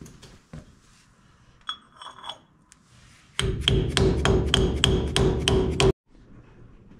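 Dead-blow hammer tapping a dust cap onto a truck's front wheel hub: a few light metal clinks, then a quick run of about ten blows at about four a second with a ringing note. The blows cut off suddenly.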